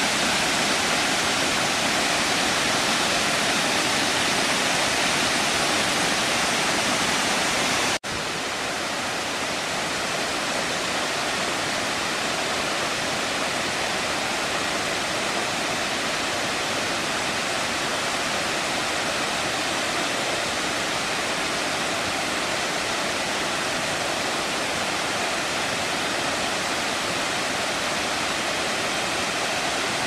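Steady rushing of the Kravica waterfall on the Trebižat river, its water falling over tufa ledges into the pool. It breaks off for an instant about eight seconds in and carries on a little quieter.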